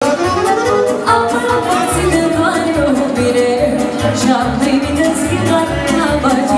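Live Romanian hora music: a woman singing into a microphone over accordion and saxophone, with a steady bass beat underneath.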